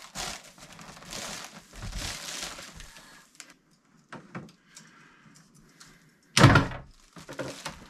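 Handling noise of white PEX water tubing being worked through a hole in a wooden bathroom vanity: plastic rubbing and scraping for the first few seconds, then a loud knock against the wood about six and a half seconds in.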